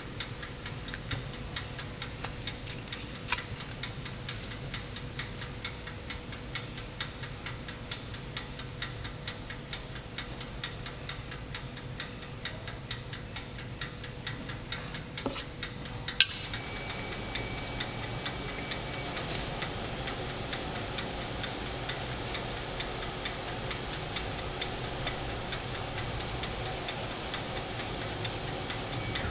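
Steady, rapid ticking, several ticks a second, with a single sharp clink about sixteen seconds in.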